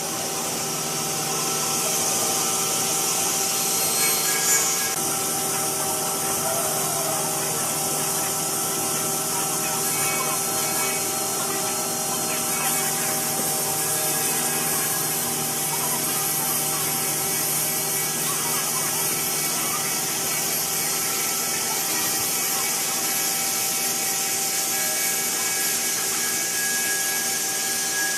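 5-axis CNC wood router with an HSD spindle head running and cutting wood: a steady spindle whine made of several held tones over the hiss of the bit cutting.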